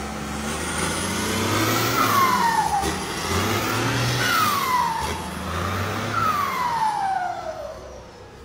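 Tractor engine revved three times, about two seconds apart, each rev followed by a falling whistle; it dies down near the end.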